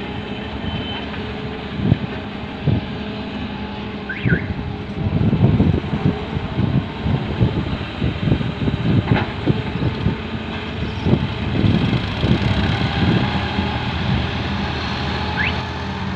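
Diesel engines of a Volvo EW130 wheeled excavator and nearby tractors running steadily while earth is dug and loaded, with a run of irregular knocks and thumps through the middle.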